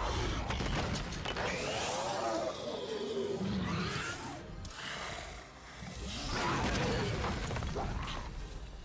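Film sound effects of a giant serpent, the basilisk, roaring with wavering cries over a heavy low rumble. A second bout of cries comes about six seconds in.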